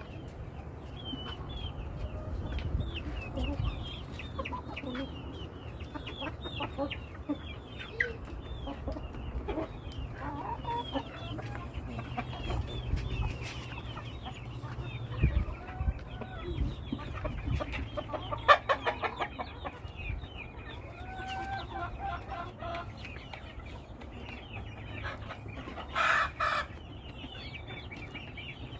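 A flock of chickens clucking and peeping, with many short, high chirps throughout. About 18 seconds in there is a quick run of clucks, and near the end a short, loud squawk.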